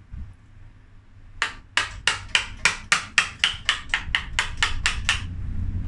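Rapid, even hammer strikes on a carving tool, about four a second, starting about a second and a half in, as it cuts broken, rotten wood out of an elm trunk to hollow it.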